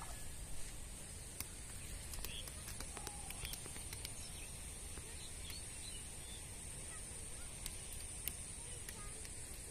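Open-air ambience: a low wind rumble on the microphone and a steady high hiss, with faint scattered bird chirps and a few light clicks.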